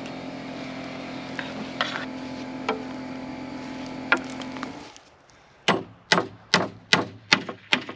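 Claw hammer driving a nail through a wooden brace board into a stud: six sharp strikes at an even pace, about two and a half a second, in the second half. Before them a steady motor hum with a few light knocks stops about five seconds in.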